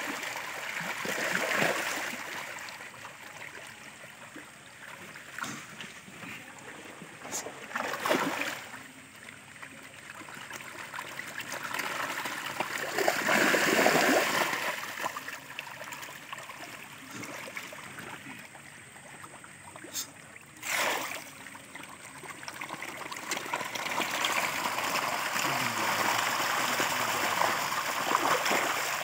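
A crowd of hybrid pangas catfish thrashing and splashing at the surface of a pond. The water noise comes in uneven surges, loudest about halfway through, with a few sharp splashes between.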